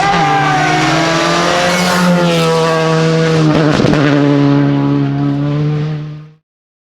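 Rally car engine running loudly at high revs, its pitch easing down at first and then holding fairly steady, before the sound fades out quickly after about six seconds.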